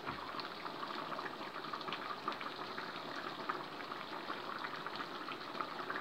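Chicken and vegetables in coconut milk sauce simmering in a pan: a steady bubbling with many small pops.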